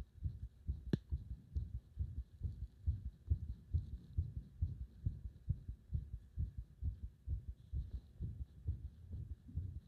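A human heartbeat recorded close up: a continuous run of low, muffled thuds, with one sharp click about a second in.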